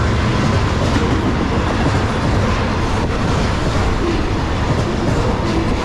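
Freight train's loaded double-stack container well cars rolling past at close range: a loud, steady rumble of steel wheels on the rails.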